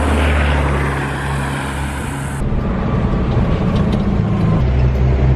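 A motor vehicle's engine running steadily with a low hum, the sound changing abruptly about two and a half seconds in.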